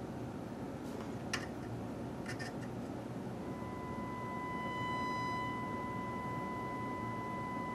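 A few light clicks, then a steady 1 kHz sine test tone that comes in about three and a half seconds in and holds. For about a second after it starts it carries extra higher overtones, then settles to a cleaner tone.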